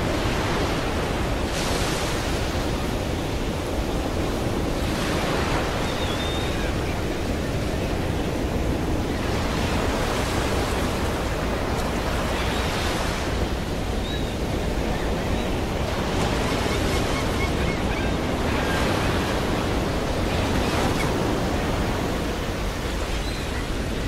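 Ocean surf: waves breaking and washing up in a steady rush, with a hissing surge every few seconds.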